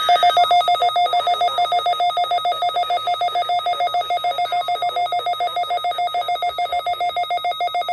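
Weather alert radio's alarm beeping: one high electronic tone pulsed rapidly and evenly, signalling an incoming severe weather warning. It starts abruptly and cuts off suddenly near the end.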